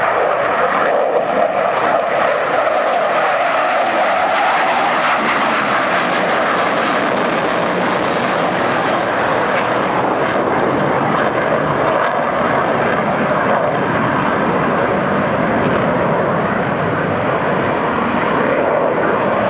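Twin Pratt & Whitney F100 turbofans of a McDonnell Douglas F-15C Eagle fighter jet at takeoff power as it climbs away, a loud, steady jet roar. The high hiss in the roar thins out about nine seconds in while the low rumble carries on.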